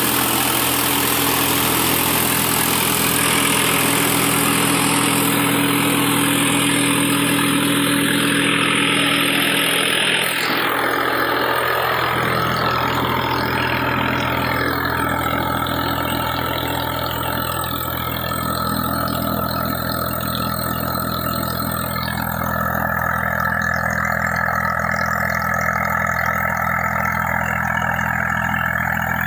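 Swaraj 855 tractor's three-cylinder diesel engine running steadily, driving a generator under test. Its sound changes abruptly about ten seconds in.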